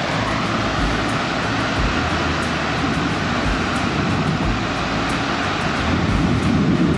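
Off-road vehicle's engine running steadily at low speed, growing a little louder near the end.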